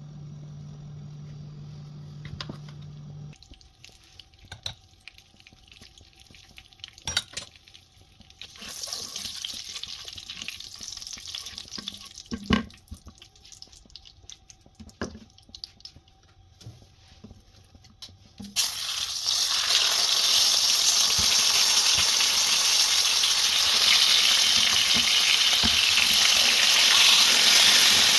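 Kitchen cooking sounds: scattered clicks and knocks of utensils and dishes, then a loud steady hiss that starts suddenly about two-thirds of the way through and keeps going.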